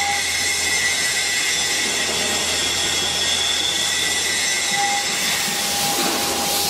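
KOTEC Newrun 7 multi-spindle beam drilling machine running through an automatic tool change: a steady mechanical hiss and hum with a thin whine that comes and goes, returning about five seconds in.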